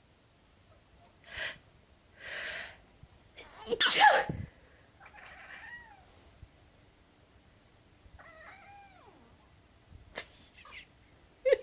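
A person sneezes loudly about four seconds in, after two short noisy breaths, and a cat answers with two short complaining meows a couple of seconds apart.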